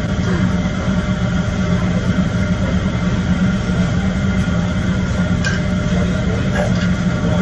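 Steady low mechanical hum that holds even throughout, with a strong low drone under a wider haze.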